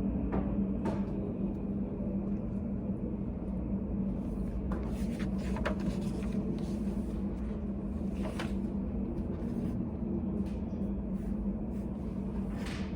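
Study cafe room tone: a steady low hum, with a few faint light clicks and taps now and then.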